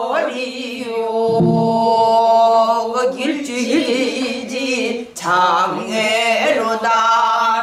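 A woman singing a Korean danga in pansori style, holding long wavering notes with strained, husky attacks, with occasional strokes on a drum she beats with a stick.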